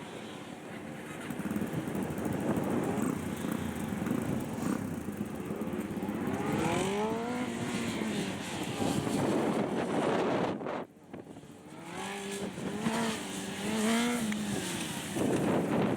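Honda CBR600RR's inline-four engine revving up and down over and over through tight turns, the revs rising and falling in quick swells, with a brief drop to near idle partway through before several short blips of throttle.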